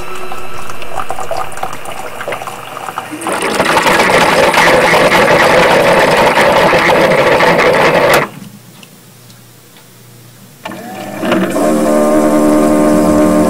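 Keurig coffee maker brewing: its pump runs with a loud rushing, gurgling sound that cuts off suddenly, then after a short lull it starts a steady low droning honk like a foghorn.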